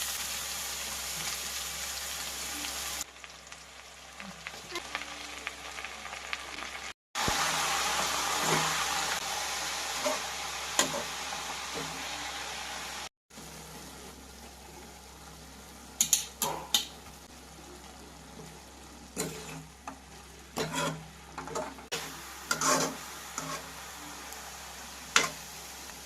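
Leafy greens frying and sizzling in a pan while being stirred, with sharp scrapes and knocks of the spatula against the pan in the later part. The sizzle drops and jumps in level at sudden cuts.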